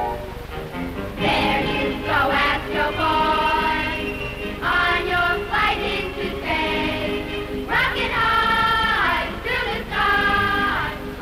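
A chorus singing a bright cartoon theme song in phrases over orchestral accompaniment, from an old 16mm film print's soundtrack.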